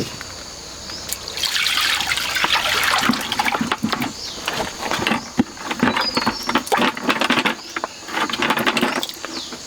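Water pouring and splashing, loudest in a rush between about one and three seconds in, with many scattered small knocks and clicks throughout.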